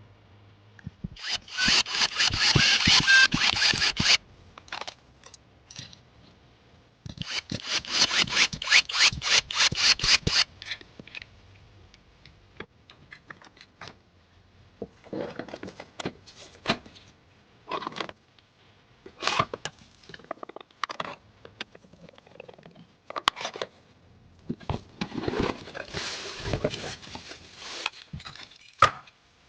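Hands working on PC parts during assembly: two runs of rapid, evenly spaced clicking of about three seconds each, then scattered small clicks and taps and a stretch of rustling near the end.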